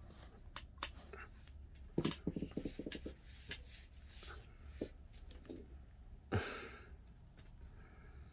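Soft close-up sounds of a kitten nuzzling and rubbing against a man's face and head: scattered small clicks, a quick run of soft pulses about two seconds in, and one short breathy puff a little past six seconds.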